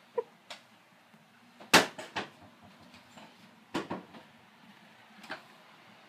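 About eight short, sharp knocks and taps at irregular intervals over a faint steady hum, the loudest a little under two seconds in and another pair near four seconds.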